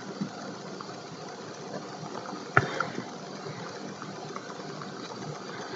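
A steady machine-like hum and hiss in the background, with one sharp click about two and a half seconds in and a few fainter ticks.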